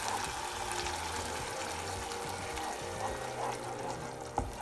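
Wooden spoon stirring thick tomato sauce in a saucepan, a wet stirring sound, with one knock near the end. Faint background music plays underneath.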